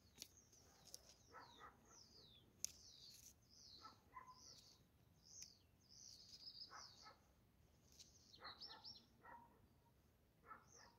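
Faint birdsong: quick high chirps and short falling whistled notes, with a lower call repeating every second or two and a few sharp clicks near the start.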